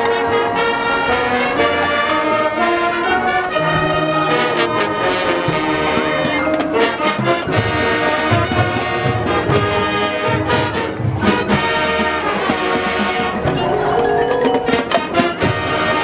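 High school marching band playing: brass (trumpets and trombones) carry the tune over mallet percussion, with a steady pulse of low drum hits from about seven seconds in.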